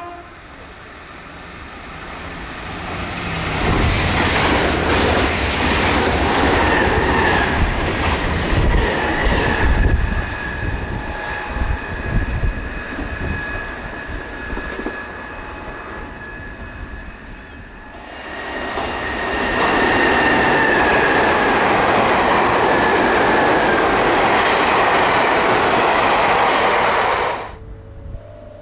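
A Nankai Southern limited express electric train, 10000 series and 7100 series cars coupled, passes at about 100 km/h, its wheels clattering over rail joints with a steady high ring; the sound swells, then fades. About eighteen seconds in, it cuts abruptly to a second Southern train of the same cars passing at about 99 km/h, loud and steady until it stops abruptly near the end.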